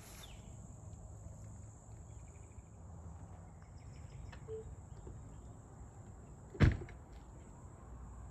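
Tesla Model X's powered liftgate and falcon-wing door closing, with one loud thump as a door latches shut about six and a half seconds in.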